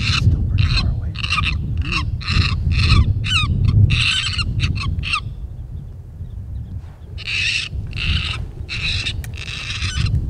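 Predator call playing a prey distress sound: short, rapid cries repeating a few times a second, some wavering in pitch, breaking off about five seconds in and starting again near seven seconds. A low wind rumble runs under it.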